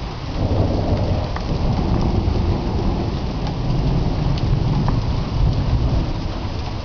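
Heavy rain falling steadily, with a long, low rumble of thunder that builds about half a second in, rolls on for several seconds and eases near the end.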